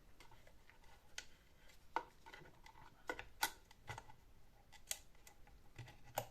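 Scattered light clicks and taps of small tools and hard plastic parts being handled, about eight over several seconds.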